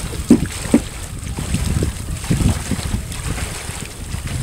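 Wind buffeting the microphone, with irregular sloshing from legs wading through shallow water; two sharp knocks or splashes stand out in the first second.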